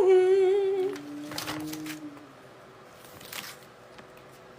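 A person's voice holding a high, wavering note for about a second at the start, followed by a fading lower tone and a few soft rustles.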